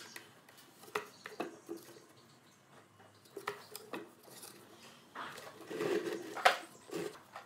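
A cardboard flap and thin wire pins handled against the rim of a plastic bucket: scattered light clicks and taps, a rustling scrape of cardboard on plastic, and one sharper click near the end, the loudest sound.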